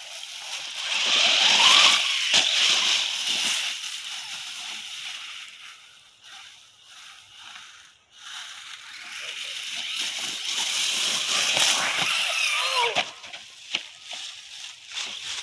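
ZD Racing ZMT10 electric RC monster truck driving over grass and dry leaves: its motor whine rises as it accelerates about a second in, over a hiss of tyres and leaves. It goes quieter from about six to eight seconds, then runs again, and the whine falls near the end as it slows.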